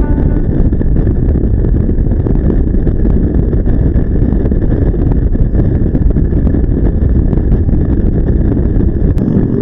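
Loud, steady rushing noise, heaviest in the low end: wind buffeting the microphone.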